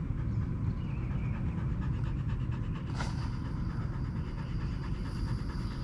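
Dry chemical fire extinguisher held upside down with its valve squeezed open, discharging with a continuous rushing hiss of pressurized gas and powder as its pressure is bled off. About three seconds in the hiss turns sharply brighter and higher.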